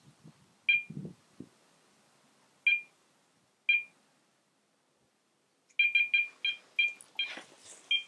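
Electronic carp bite alarm beeping. There are three single beeps a second or so apart, then a quick run of about ten beeps near the end, as a carp takes the bait and pulls line off the rod.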